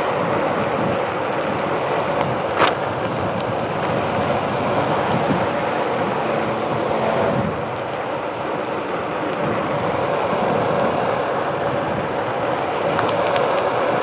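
Onewheel Pint electric board rolling over pavement, its tyre noise mixed with wind buffeting the microphone and a steady hum throughout. A single sharp click comes about two and a half seconds in.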